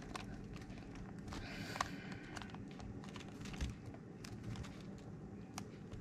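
Quiet plastic clicking and rattling of a megaminx puzzle being turned in the hands, with a few sharper clicks scattered throughout.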